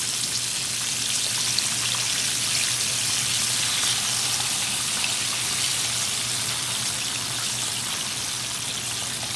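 Breaded chicken drumsticks deep-frying in hot oil in a cast-iron skillet: a steady crackling sizzle.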